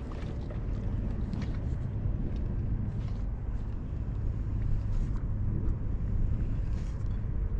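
Steady low wind rumble on the microphone, with a few faint light ticks from the spinning reel being worked during a retrieve.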